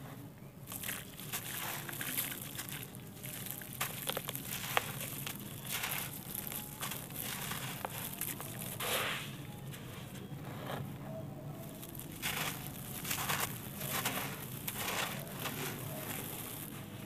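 Hands scooping and dropping handfuls of damp soil mixed with white grit into a shallow tray: irregular gritty crunching and the patter of falling grains, with a few sharper clicks of stones.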